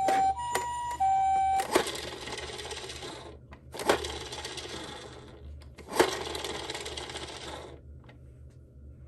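A toy siren sounding two alternating tones, switching about every half second, then stops. After that, three times in a row, a toy minicar rolls down a slope: each run starts with a sharp clack and becomes a rattling rush that fades after about a second and a half.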